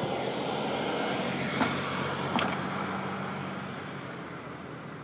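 A motor vehicle's steady engine and road noise, slowly fading as it passes, with two short sharp clicks in the first half.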